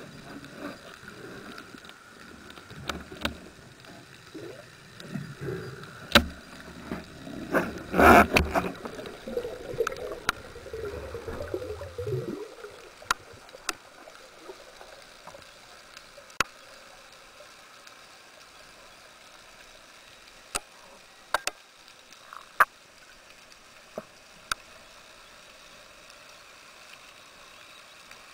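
Underwater sound through a speargun-mounted camera: low rumbling and knocking of water and handling for about twelve seconds, loudest with a hard knock about eight seconds in, then a sudden drop to a quiet hiss broken by scattered sharp clicks.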